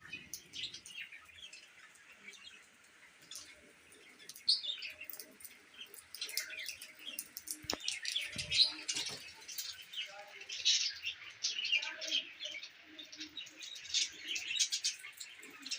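Baby bird chirping in many short, high-pitched peeps, sparse at first and growing busier and louder from about six seconds in.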